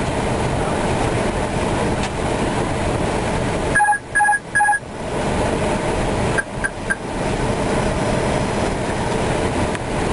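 Steady rushing noise of airflow and engines in an Airbus A319 cockpit on final approach. About four seconds in come three short electronic alert beeps, and three fainter, shorter beeps follow a couple of seconds later.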